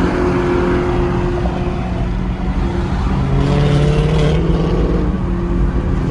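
Car engines running with steady road noise. About three and a half seconds in, one engine's pitch rises briefly as a car accelerates.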